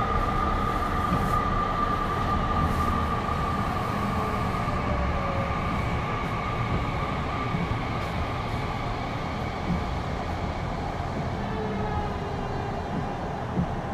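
Interior running sound of a Tokyu 5050 series commuter train in a subway tunnel: a steady wheel-and-rail rumble, slowing as it nears the terminus. A steady high whine fades out over the first half, and the overall level falls gradually.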